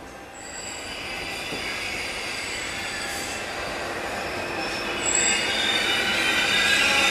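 Steel wheels of a rolling train squealing against the rails over steady rolling noise. There are short high squeals about half a second in and again about five seconds in, then a louder, fuller squeal builds over the last two seconds.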